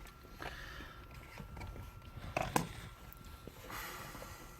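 Quiet handling of the metal shifter assembly: a couple of light clicks about halfway through, with soft rustles before and after.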